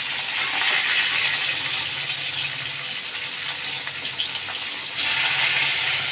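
Pieces of rohu fish shallow-frying in hot oil in a metal kadai, a steady sizzle as the second side fries after turning. The sizzle gets suddenly louder about five seconds in.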